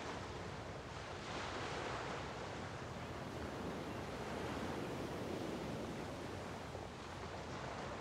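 Small waves washing onto the San Francisco Bay shore, rising and falling in swells every few seconds over a steady low rumble.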